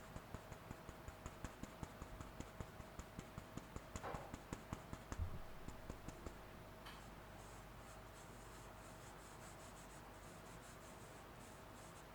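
Light rhythmic clicking, about three clicks a second, over a faint steady hum. The clicks stop about six seconds in and give way to fainter, irregular ticking and scraping.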